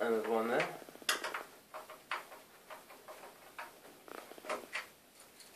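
Irregular light clicks and taps of a screwdriver working screws out of a laser printer's casing, a dozen or so small knocks spread over a few seconds.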